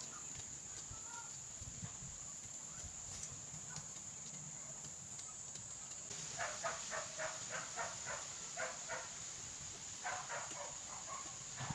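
Chicken clucking in quick runs of short notes, about four or five a second, starting about six seconds in and again near the end, over a steady high-pitched hum.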